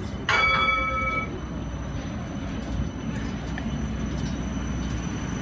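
CAF tram rolling slowly into the stop with a low, steady rumble. About a third of a second in, a bell-like chime rings once, fading over about a second: the tram's warning bell.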